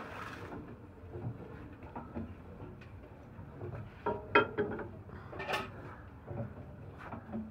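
A steel bar clanking against the front end of a large old stationary diesel engine. There is a sharp, ringing metal clank about four seconds in and another about a second later, over soft low thumps roughly once a second.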